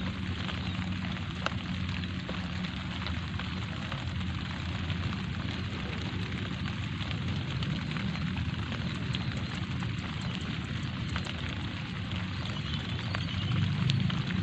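Light rain falling steadily, a soft hiss with scattered tiny drop ticks. A low rumble grows louder near the end.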